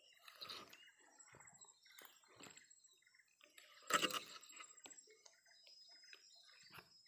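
Faint small splashes and clicks of a fishing lure being worked across the water's surface, with one louder splash-like knock about four seconds in. A thin steady high whine sits underneath.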